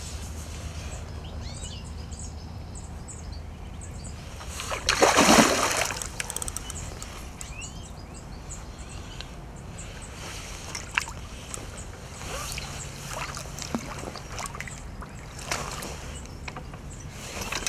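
Hooked mirror carp splashing at the surface of a lake while being played close to the bank, with one loud splash about five seconds in and smaller sloshes and faint clicks around it.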